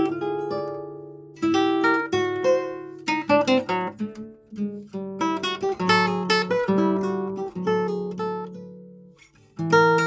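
Nylon-string classical guitar in drop D tuning, played solo and fingerpicked: melodic phrases over ringing bass notes. The notes are left to die away about a second in and again shortly before the end, then playing resumes.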